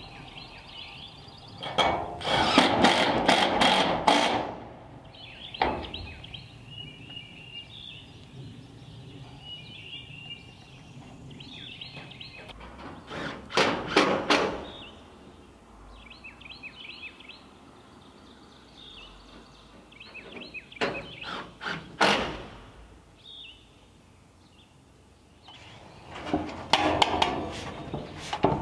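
Power driver running screws through corrugated metal roofing in several short bursts, the longest about two seconds in, with birds chirping in the quieter stretches between. Near the end there is a longer stretch of clattering as a metal roofing panel is handled.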